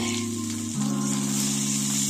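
Pre-boiled potato wedges sizzling steadily in hot oil in a wok, under background music of held low chords that change about a second in.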